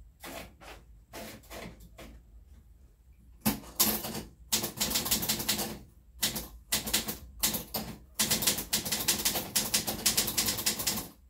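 A portable typewriter being typed on. A few scattered keystrokes come first, then from about three and a half seconds in there are fast runs of clacking keys with short pauses between them.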